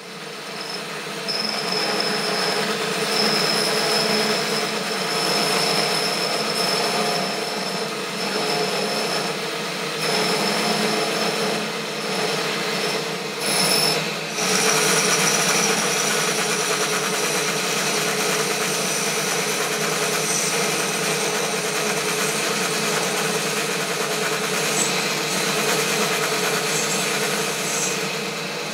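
Metal lathe running while a carbide-insert turning tool takes a steady cut along a bar: a continuous rasping hiss of cutting over the hum of the lathe's motor and gearing, with a thin high whistle through the first half that stops about halfway through.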